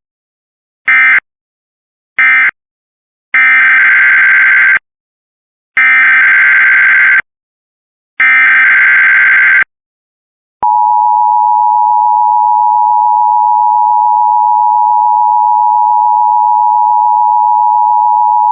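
Emergency Alert System data bursts followed by the alert tone. Short buzzy bursts close out one test: two fall in the first couple of seconds. Then three longer bursts about a second and a half each form the next alert's header, and about ten and a half seconds in a steady attention tone starts and holds for about eight seconds.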